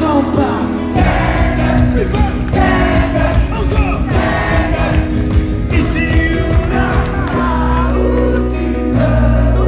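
Live pop-rock concert music heard from within the crowd: a male singer singing into a microphone over a full band, with the drum beat coming in about a second in.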